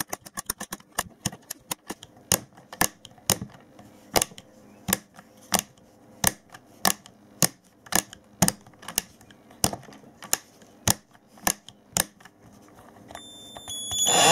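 A cordless drill's forward/reverse rotation switch being snapped back and forth, sharp plastic clicks, fast at first and then about one or two a second: the switch, repaired with a 3D pen, now clicks into its positions. A short loud burst comes right at the end.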